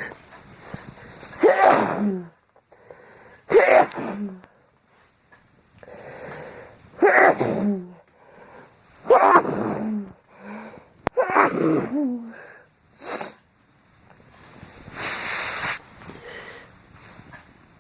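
A woman sneezing over and over in a fit set off by a strong fragrance spray: five loud sneezes about two seconds apart, each a sudden burst that falls in pitch, with quieter breaths drawn between them. A longer hiss follows near the end.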